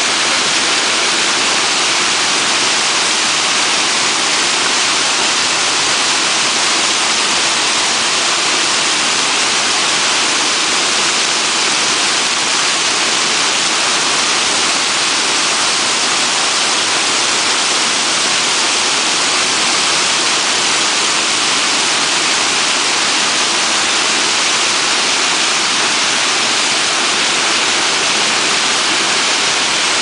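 Waterfall pouring over a rock ledge into a pool: a steady, loud rushing of water with no change in level.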